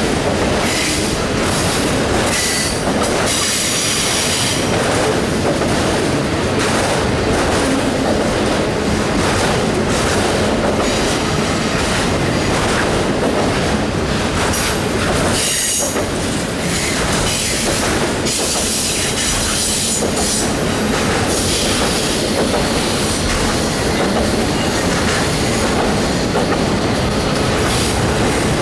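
Freight train of autorack cars rolling past: a steady, loud rumble of steel wheels on the rails, with high-pitched wheel squeal rising out of it twice, a few seconds in and again past the middle.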